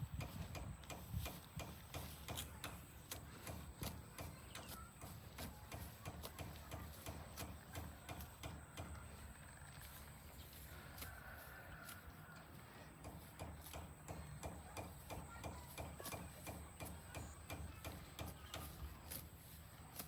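Cattle hooves clopping on hard ground as the cows walk: a string of irregular clicks, several a second, over a low rumble.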